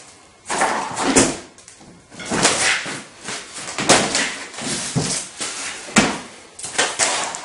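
Handling noise: knocks, clatter and rustling as a bicycle wheel and packaging are moved about and set down, with a sharp knock about six seconds in.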